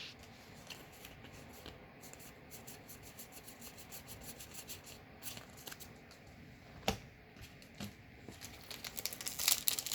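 Trading cards being handled and slid against one another, a run of faint quick ticks with one sharper knock about seven seconds in. Near the end comes louder crinkling of a foil booster pack wrapper.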